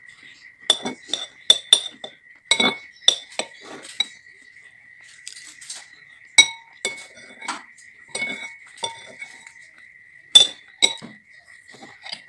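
Metal spoon clinking and scraping against a ceramic bowl: a dozen or so sharp, ringing clinks at irregular intervals. A steady high-pitched tone runs underneath.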